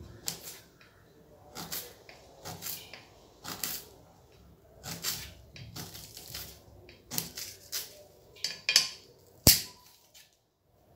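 Kitchen knife slicing fresh ginger on a stainless steel plate: a dozen or so irregular knife strokes that click and tap against the metal, the sharpest one about nine seconds in.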